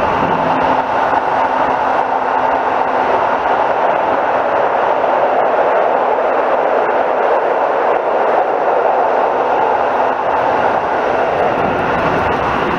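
Keisei 3500-series electric commuter train running at speed, heard from inside the car: a steady rumble and hiss of wheels on rail.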